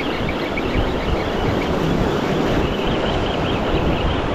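Wind buffeting the microphone, a steady rumble, over surf washing against the jetty rocks.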